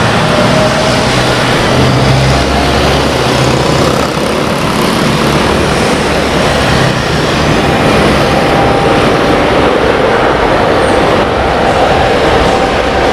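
A Boeing 777-300ER's twin GE90 turbofan engines running loud as the airliner rolls along the runway: a steady jet roar, with a steady whine that comes in about two-thirds of the way through.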